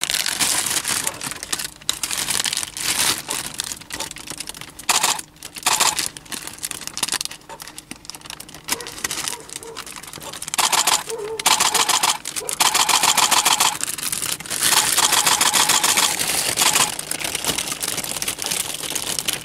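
A stills camera's shutter firing in rapid continuous bursts, runs of fast even clicks lasting about two seconds each, with rustling handling noise between them.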